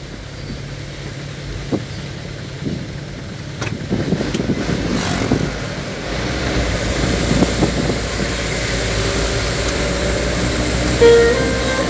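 Road and engine noise from inside a moving vehicle's cabin: a steady low rumble that grows louder about halfway through, with a few scattered knocks. Music comes back in near the end.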